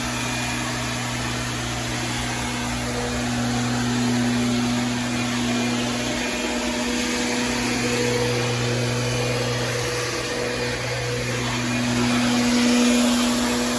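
An engine running steadily at constant speed: a low, even hum with a slight rise in level near the end.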